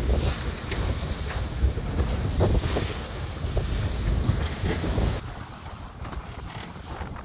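Wind buffeting the microphone over the rush and slap of choppy sea against a sailing catamaran's hulls. The wind noise eases suddenly about five seconds in.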